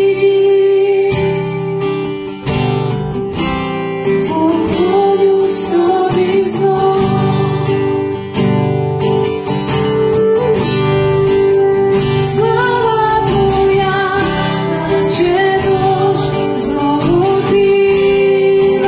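Live worship music: an acoustic guitar strummed over a bass guitar, with a woman singing and a woodwind playing long held notes.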